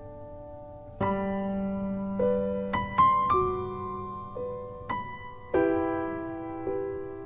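Background music: slow, gentle piano, chords struck every second or so and left to ring.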